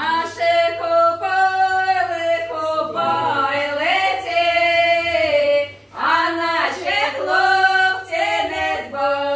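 Women's voices singing a folk song unaccompanied, with long held notes and a short pause for breath about six seconds in.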